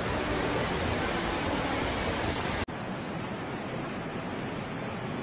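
Fast-flowing muddy floodwater rushing in a steady, dense hiss, from two phone recordings. About two and a half seconds in there is an abrupt cut to a second, slightly quieter stretch of the same rushing.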